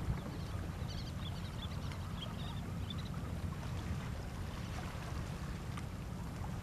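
Steady low rumble and hiss of wind and water, with a few faint high chirps about one to three seconds in.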